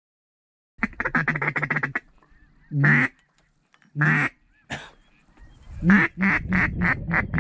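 Duck quacking: a fast chattering run of quacks about a second in, two single drawn-out quacks, then a series of quacks that starts loud and gets softer toward the end.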